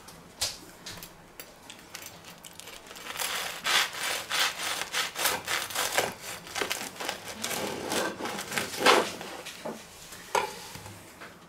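Serrated bread knife sawing back and forth through a crusty stone-oven baguette sandwich, the crust rasping and crackling in quick strokes. There is a louder knock about nine seconds in.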